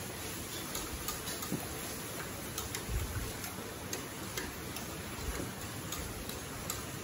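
Wire whisk stirring a cream and cheese sauce in a stainless steel pot, its wires clicking against the pot about twice a second at an uneven pace.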